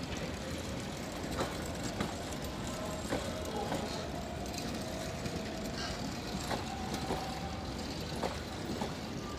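Bangladesh Railway intercity passenger train rolling past: a steady rumble of the coaches with irregular short clacks of wheels over rail joints.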